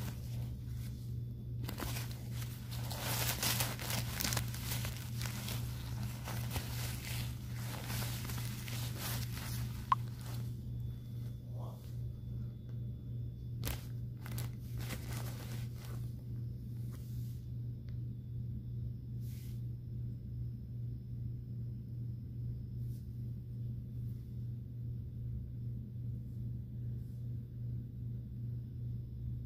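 Disposable diaper with padding inserts crinkling and rustling as it is handled, heaviest in the first ten seconds, then in a few short bursts until about sixteen seconds in. A steady low hum runs underneath and is all that is left in the second half.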